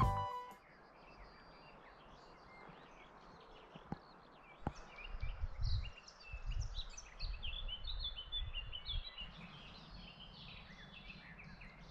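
Small birds chirping and singing in many short, quick notes, building up after the first few seconds over a faint steady hiss. There are two brief clicks a little before the middle and irregular low rumbles, like wind on the microphone.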